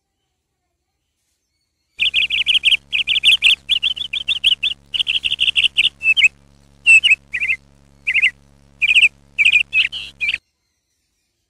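Sparrows giving rapid, shrill alarm chirps in quick runs of several notes, the birds' scolding at a cat. The chirping starts about two seconds in and cuts off suddenly near the end.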